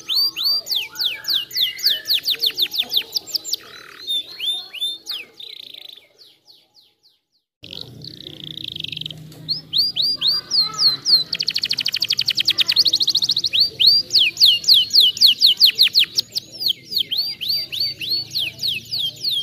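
Domestic canary singing: fast trills of short, high, falling notes repeated in rolls. A break of about a second and a half comes about six seconds in, and a dense buzzing roll comes around twelve seconds in.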